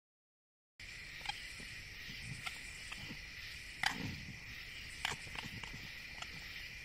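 Night field recording of a steady insect chorus, a high two-toned drone of crickets or katydids, starting about a second in after a brief dropout. Scattered faint clicks run through it, and a sharper knock comes just before the middle with a short low sound after it.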